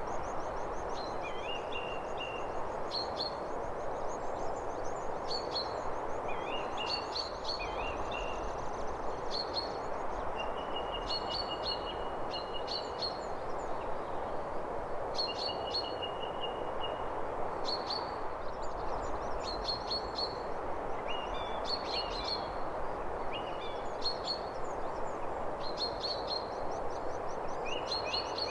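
Several songbirds chirping, with short high notes every second or two and now and then a brief trill, over a steady background hiss.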